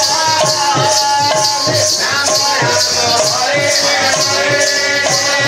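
Live kirtan devotional music: a man singing a melodic line over a hand-played barrel drum, with steady rhythmic metallic jingling.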